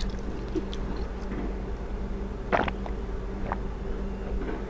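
A steady low electrical hum with a few small clicks, and a short knock about two and a half seconds in, as a clear drinking jar of water is handled and sipped from.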